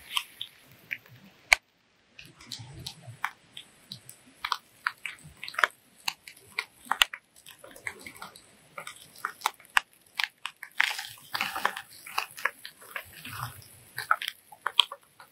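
A person chewing crunchy food close to the microphone: irregular crunching clicks, with a short break about two seconds in.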